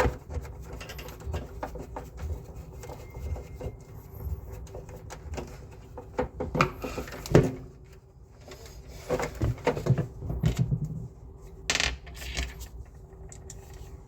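Scattered clinks, knocks and rubbing of metal parts and tools being handled, in irregular clusters, over a faint steady hum.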